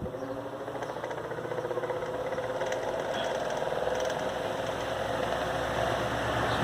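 Arno Versátil electric fan running and shaking hard (trepidando). Its unbalanced generic propeller has a test weight clipped to a blade that makes the wobble worse. The hum and rattle grow gradually louder, with a slight rise in pitch.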